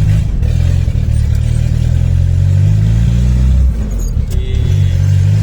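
Turbocharged Volkswagen AP 1.9 four-cylinder engine with a Holset HX40 turbo and 350T camshaft, pulling the car along: a loud, low, steady drone that rises gently in pitch, eases off a little under four seconds in, then picks up again.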